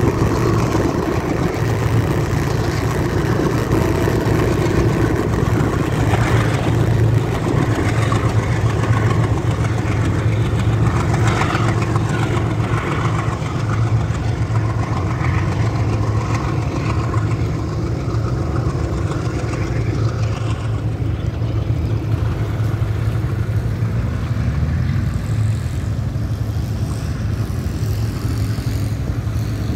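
A steady low engine drone under road and wind noise, with a passing rise in hiss about a third of the way in.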